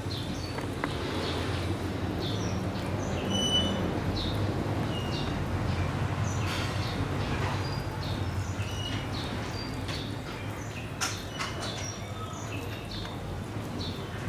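Small birds chirping in many short, scattered calls over a steady low background hum, with a few sharp clicks about eleven seconds in.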